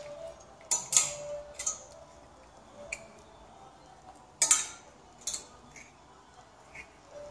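Plastic clothes hangers clicking and clacking against a metal clothes rail and each other as sequin dresses are pushed along the rack. The clicks are scattered and sharp, loudest about a second in and again around four and a half seconds.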